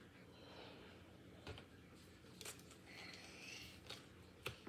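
Near silence: room tone with a few faint, short clicks and a brief soft rustle.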